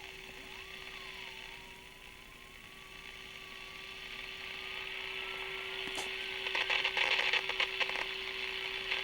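Panasonic R-111 AM transistor radio's speaker sounding a steady test tone while its IF coils are being aligned, with a fainter whistle slowly drifting up in pitch. Hiss and crackling static build up over the last few seconds.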